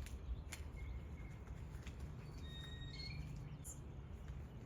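Birds chirping: short, thin, high whistles scattered throughout, over a low steady background rumble, with a few faint clicks.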